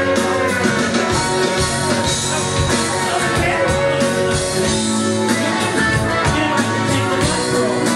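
Rock-and-roll music with guitar and drums playing steadily.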